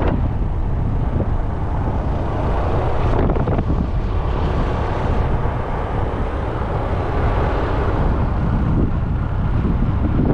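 Wind rushing over the microphone of a GoPro action camera on a moving motor scooter, with the scooter running underneath in a steady rumble.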